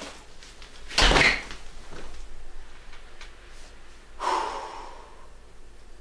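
An interior room door shutting about a second in, sharp and loud, followed by a softer noise about four seconds in.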